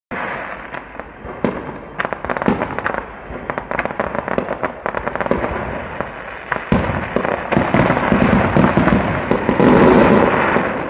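A rapid, irregular run of sharp bangs and crackles that starts suddenly and grows denser and louder toward the end.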